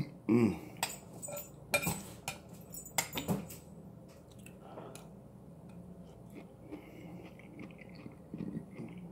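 A metal fork clinking and scraping against a dish several times over the first few seconds, after a brief voice sound at the very start. Then only soft chewing of a mouthful of vegetables.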